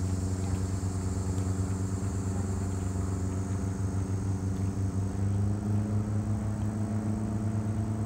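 A vehicle engine running steadily with a low drone, its pitch rising slightly about five and a half seconds in.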